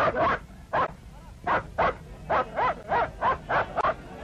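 Šarplaninac sheepdog barking in a rapid series of short, sharp barks that come faster in the second half, an aggressive dog worked up against a wolf.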